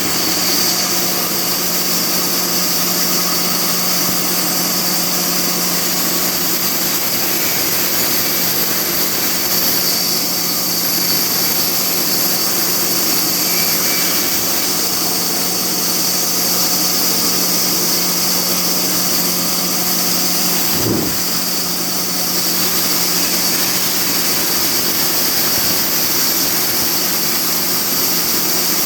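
Sawmill machinery running steadily: a constant motor hum with a high hiss over it, with one short low thud about two-thirds of the way through.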